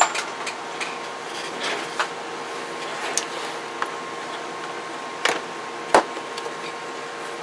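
Scattered clicks and knocks of a CB radio and its cables being handled on a workbench, the sharpest about six seconds in, over a steady background hum.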